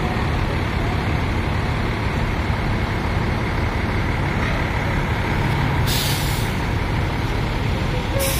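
A large bus's engine running steadily, with two sharp hisses of air from its air brakes: a half-second one about six seconds in and a short one near the end.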